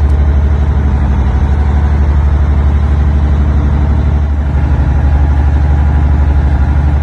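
Boat engine running steadily, a loud low hum with a slight regular pulse.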